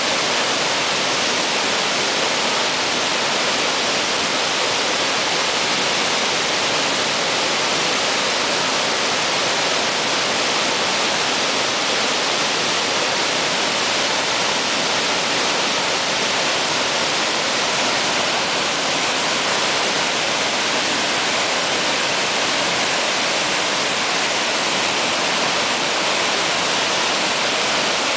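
Tall waterfall, about 35 metres, pouring into its plunge pool: a loud, steady rush of water.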